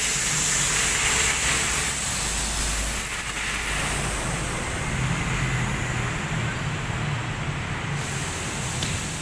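Nitrogen tyre inflation machine hissing steadily as it fills a car tyre through the valve toward 33 PSI, over a low machine hum. The hiss changes about eight seconds in.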